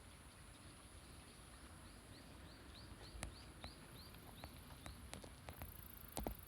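A bird gives a quick run of short high chirps, about three to four a second, over faint rural background, with a few sharp clicks near the end.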